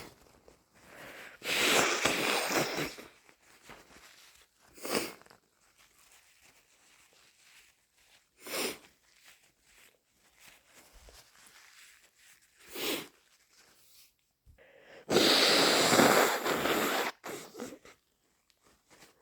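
A person blowing a wet, snotty nose hard: two long blows of well over a second each, one about a second in and a louder one near the end, with three short nasal bursts between them.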